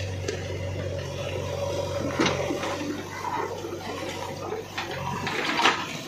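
JCB 3DX backhoe loader's diesel engine running with a steady low hum while the backhoe bucket digs through a pile of broken stone and earth, rocks and soil scraping and rattling. There is a sharp knock about two seconds in and a louder clatter of stone near the end.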